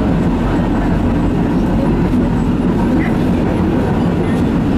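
Tram running along the street, heard from inside the car: a steady noise of wheels on rails and traction motors.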